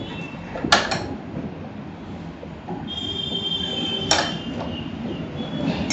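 Sharp metal clinks of spanners and tools on the motorcycle's front suspension, three of them spread out, with a high metallic ringing held for about a second in the middle.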